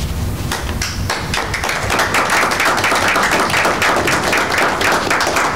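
Audience applauding. The clapping starts about a second in and keeps up as a dense patter of many hands.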